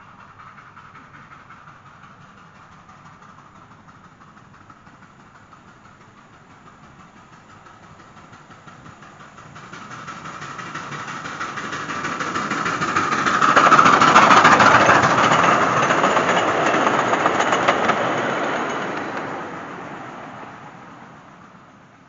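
Miniature steam locomotive running along narrow-gauge track: it grows louder from about nine seconds in, is loudest around fourteen seconds as it draws close, then fades away near the end.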